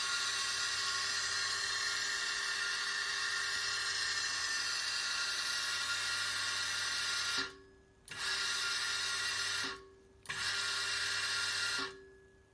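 CZ50 watchmaker lathe's motor and spindle running at speed with a steady whine and hiss. It is switched off about seven and a half seconds in, winds down quickly, and is restarted and stopped twice more, about every two seconds.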